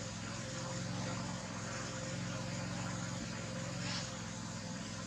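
Steady low engine hum under an even hiss.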